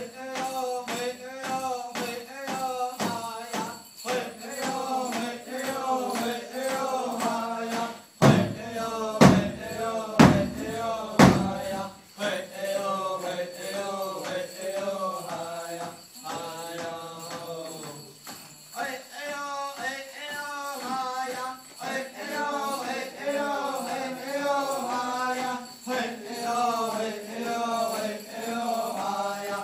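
Powwow drum group singing in chant style over a steady beat on a large shared drum, accompanying an eagle dance. About eight seconds in come four heavy, louder strikes roughly a second apart, then the steady beat and singing resume.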